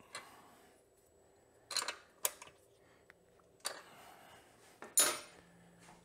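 Metal wrenches clinking against the chain adjuster bolt and nuts on a motorcycle swingarm as the adjuster lock nut is tightened: four or five separate short clinks a second or so apart, the last one ringing briefly.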